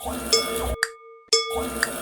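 Railroad crossing warning bell ringing steadily at about two strikes a second, each strike a short ringing tone. Two longer stretches of rumbling noise run under the bell.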